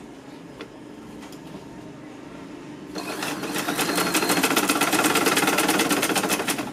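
Sewing machine stitching in one fast run, starting about three seconds in and stopping near the end, its needle making rapid, even ticks. Before the run there is only low handling noise and a single click.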